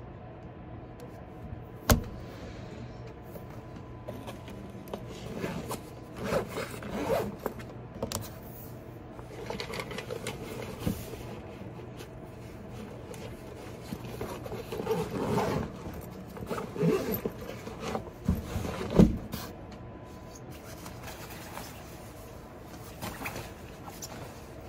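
Handling noise of someone getting up from a desk and lifting a quilted nylon puffer jacket: fabric rustling and scraping in several bouts, with two sharp knocks on the desk or chair, one about two seconds in and a louder one near nineteen seconds. A steady low room hum runs underneath.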